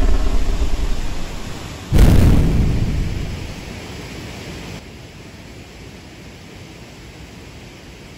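A film sound effect for the glowing figure vanishing: a pitched hum fading in the first second, then about two seconds in a sudden deep boom that dies away over a second or two, leaving a steady hiss.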